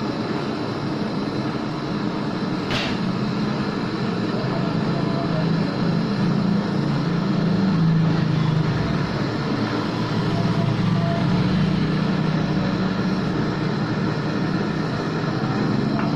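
Homemade LPG brazing torch flame burning steadily while a charging valve is brazed onto refrigerator pipework, with a short click about three seconds in.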